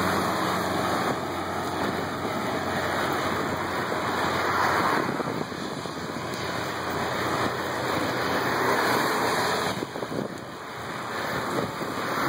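Wind rushing over the microphone of a road bike rider moving at speed: a steady rush that swells and eases every few seconds.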